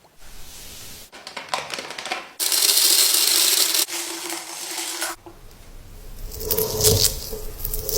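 Skincare products being handled for ASMR: crackling, then a long loud hiss for nearly three seconds, then a run of quick taps and clicks on containers.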